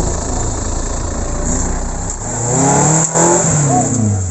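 Suzuki Jimny 4x4 engine revving up and dropping back as it crawls over rock ledges, the pitch rising and falling repeatedly.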